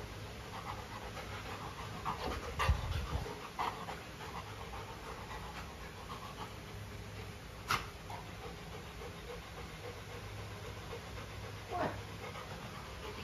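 Golden retriever panting steadily. A dull thump with a click comes about two to three seconds in, and a sharp click about halfway through.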